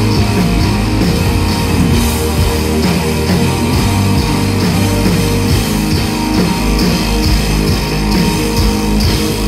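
Live rock band playing: electric guitars, bass guitar and a drum kit with steady cymbal and drum hits, loud and dense.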